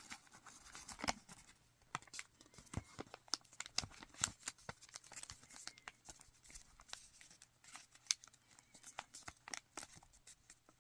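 A sheet of origami paper being folded and creased by hand: irregular soft crinkles and small sharp crackles as the paper layers are pressed flat along their creases.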